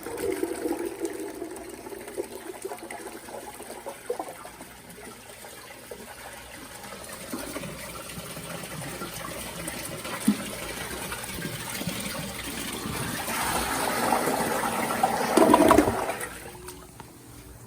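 1989 URC Atlas toilet flushing: water rushes into the bowl and swirls down, building to a loud gurgling draw-down about fifteen seconds in, then dies away.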